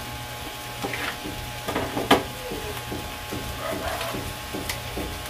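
A few light clicks and knocks of kitchen items being handled on a steel stovetop, with the sharpest click about two seconds in: a glass and a plastic pouch are set down. A steady low hum runs underneath.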